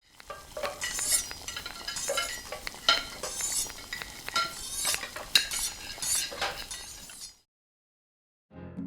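Kitchen clatter: dishes and utensils clinking and scraping in quick irregular strokes, cutting off suddenly about seven seconds in. Piano music starts just before the end.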